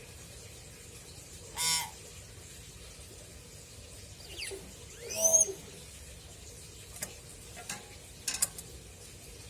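Pet hill myna calling: a short harsh call, then a couple of whistles sweeping upward about three seconds later (the loudest sounds), then several short sharp clicks near the end.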